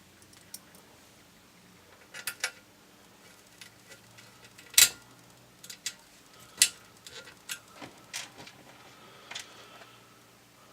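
Irregular clicks and knocks of parts being handled and fitted back onto a Sears SR2000 electric typewriter. The two sharpest come about five seconds in and again about a second and a half later.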